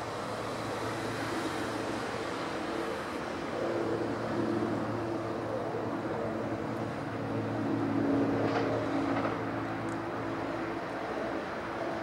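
Steady engine drone of motor traffic, a low hum with a few held tones over a wide rumble, swelling slightly about four and again about eight seconds in.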